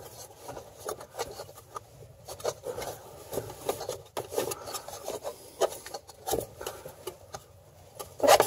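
Rubber V-belt scuffing and rubbing against the fan blades and shroud of a Kioti CK3510 tractor as the cooling fan is turned by hand to work the belt around it, with irregular light clicks and knocks, a sharper cluster near the end.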